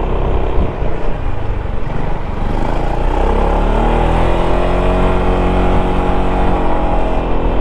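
Yamaha XMAX 300 scooter's single-cylinder engine pulling up a steep climb, its pitch rising about three seconds in and then holding steady, over a constant wind rush on the helmet microphone.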